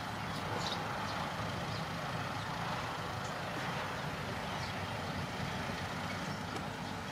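Dump truck's diesel engine running steadily while its raised bed tips out a load of soil.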